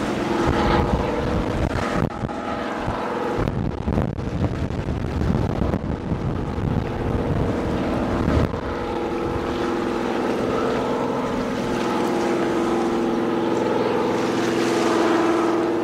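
A boat engine drones steadily, with wind buffeting the microphone over the first half.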